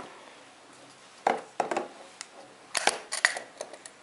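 Metal latch of a small aluminium trunk-style watch case being worked open. Several sharp clicks come in small groups, starting about a second in.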